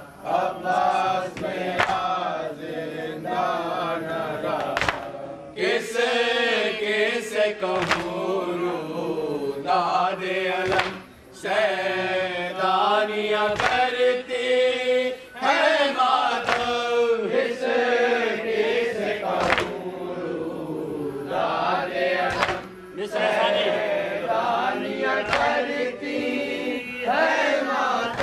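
Men chanting a noha, a Shia lament, in unison at a microphone behind a lead reciter. Sharp slaps recur roughly once a second, from matam chest-beating.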